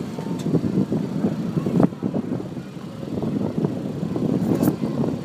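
Low, uneven rumble aboard a boat under way on open water, with a sharp knock a little under two seconds in.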